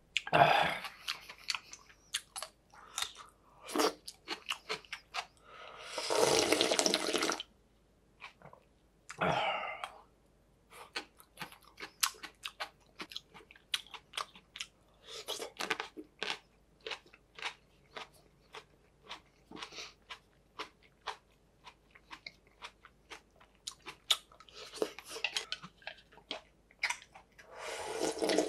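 Close-up eating sounds: steady chewing and crunching, broken several times by slurps of cold naengmyeon broth drunk straight from the bowl, the last near the end.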